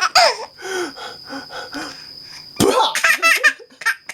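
A baby laughing hard in rapid breathy bursts. It opens with a falling squeal and breaks into a louder outburst of laughter about two and a half seconds in.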